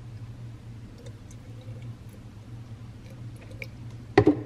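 Milk poured from a carton into a plastic portable blender bottle over berries, with faint small ticks, then two sharp knocks in quick succession near the end.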